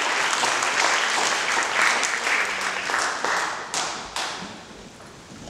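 A small seated audience applauding. The clapping thins out and ends with a couple of last single claps about four seconds in.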